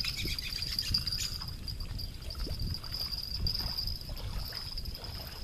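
A steady high-pitched insect buzz over low, gusting wind rumble on the microphone.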